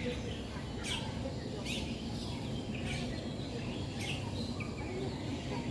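Birds chirping: short, high calls scattered through, over a steady low background hum.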